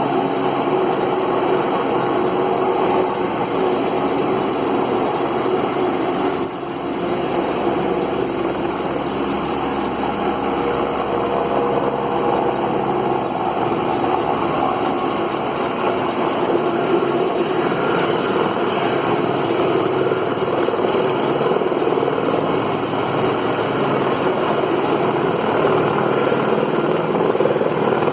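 Police rescue helicopter's turbine engine and rotor running steadily, a continuous high whine over a broad noisy drone.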